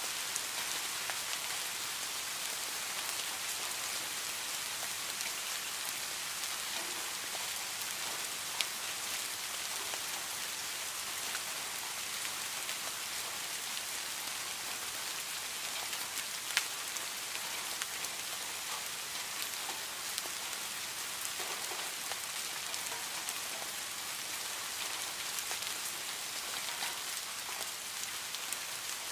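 Heavy rain falling steadily on leaves and foliage, a dense even hiss. A couple of sharper single drop hits stand out, about 9 and 17 seconds in.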